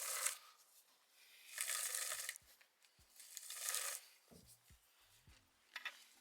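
Three short bursts of rustling, tearing-like noise, each under a second, with a few light knocks near the end.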